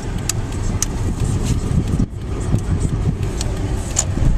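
Steady in-cabin engine and road rumble of a Scion car on the move, with a few light clicks and a brief dip in the noise about two seconds in.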